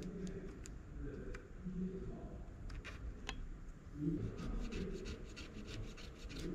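Cotton swab wet with absolute ethanol rubbed back and forth along the glue seal at the edge of an LCD panel, making faint, irregular scratchy strokes as the sealant softens.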